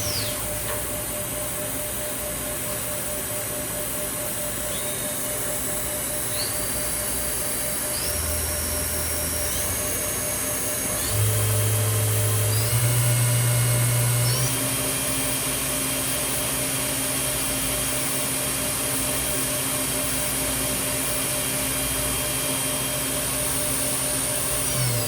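Milltronics RH20 vertical machining center running, its motor whine stepping up in pitch several times over the first half, then holding a steady pitch after about the middle.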